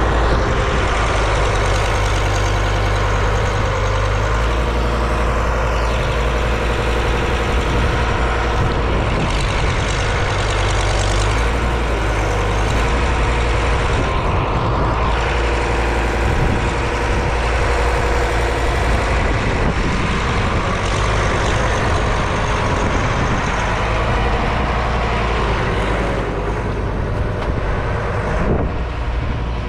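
Diesel engine of farm loading machinery running steadily, with its note shifting a little now and then.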